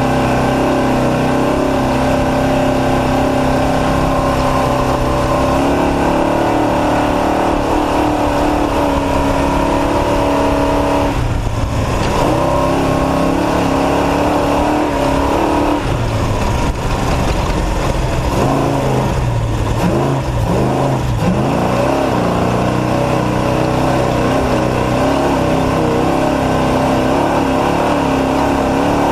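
Off-road race truck's engine running hard at high, steady revs. A little after ten seconds in the revs drop, and between about 16 and 22 seconds they fall and rise several times before settling back to a steady pitch.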